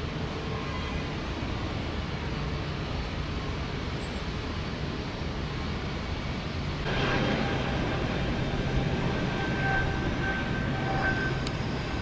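Steady rumble of vehicle and engine noise. It gets louder about seven seconds in, where a faint high whine comes in over it.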